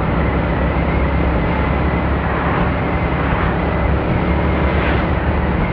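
Steady wind rumble on a phone's microphone from riding a motorcycle, with the motorcycle's engine running underneath.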